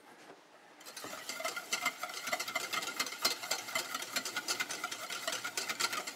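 Wire whisk beating egg yolks with vinegar and lemon juice in a stainless steel bowl, the wires clicking rapidly and evenly against the metal with a faint ring from the bowl. It starts about a second in.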